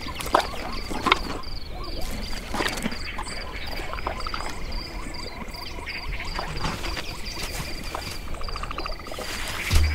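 Savanna nature ambience of insects and frogs: a steady high insect drone, a small chirp repeated about three times a second, and a short fast croaking trill near the end, with scattered light clicks and knocks.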